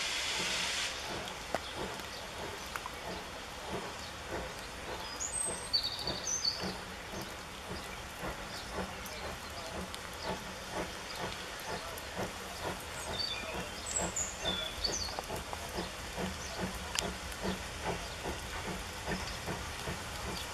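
Distant steam locomotive working a train, its exhaust beating in a steady rhythm of chuffs; a hiss of steam cuts off about a second in. A small bird chirps in two short spells over the top.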